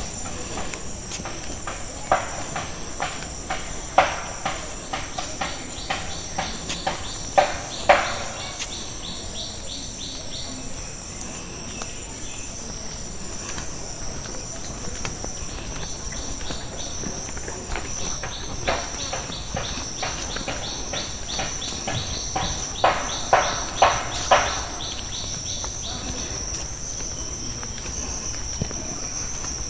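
Crickets and other insects chirring in a steady, high-pitched drone. Over it come two runs of quick, crisp clicks, one in the first few seconds and another about twenty seconds in, with a few sharper knocks standing out.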